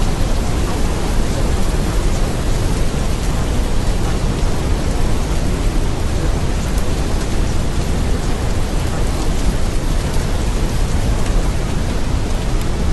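Steady recorded rain ambience: an even hiss of rain with a deep rumble underneath, unchanging throughout.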